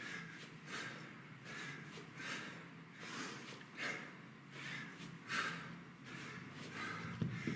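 A man breathing hard and rhythmically under exertion in a kettlebell workout, with a sharp exhale about every 0.8 s.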